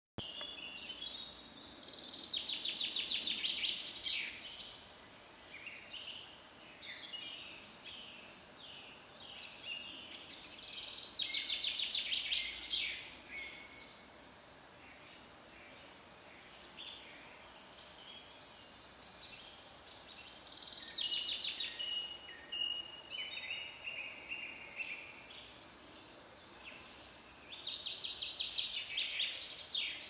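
Woodland songbirds singing in spring: several birds overlapping, with loud phrases of fast trilled notes, each a couple of seconds long, coming back every several seconds between quieter chirps and whistles.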